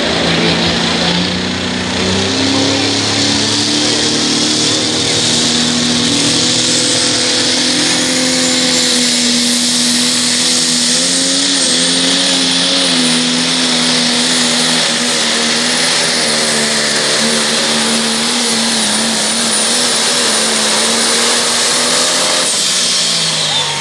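Pro Stock pulling tractor's diesel engine at full power, pulling the sled. The revs climb about two seconds in and hold high with small rises and dips, with a thin high whine over them from about halfway. Near the end the engine comes off the throttle and the pitch falls.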